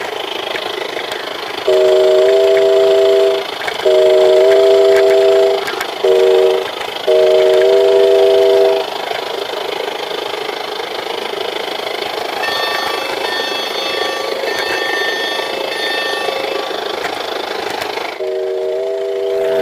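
Model locomotive whistle blowing the grade-crossing signal as a three-note chord: long, long, short, long. A fresh blast starts just before the end. Steady running noise of the train on the track lies underneath, with fainter higher tones sounding in short repeats midway.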